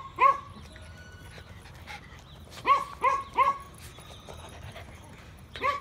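A dog giving short, high yips: one near the start, three in quick succession around the middle, and one more at the end.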